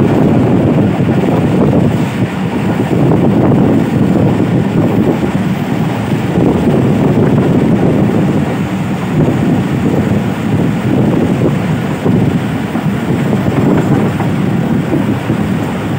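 Passenger train running at speed, heard from an open coach door: a steady, loud noise of the wheels on the track, with wind blowing over the microphone.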